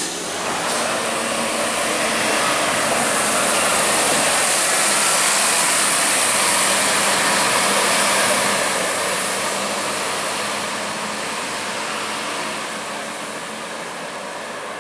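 Scania K230UB bus's diesel engine and tyres as it drives off: a steady engine hum under broad road noise, swelling over the first few seconds and then fading as the bus pulls away.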